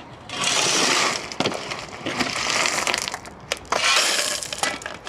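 Shovelfuls of gravel stones being tipped and scraped into a drainage trench: three rattling, crunching pours with short pauses between them.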